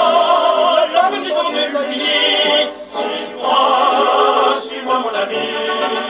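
A 1930s 78 rpm shellac record played acoustically on an HMV 102 portable wind-up gramophone: a man sings a French song with instrumental accompaniment. The sound is narrow, with little bass and no high treble, over faint surface hiss.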